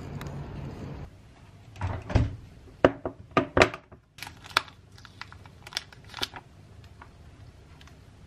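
Street traffic noise for about a second, then containers set down on a kitchen counter with several knocks, the loudest a dull thump, followed by a few light crackles as the plastic film lid of an instant rice tray is peeled back.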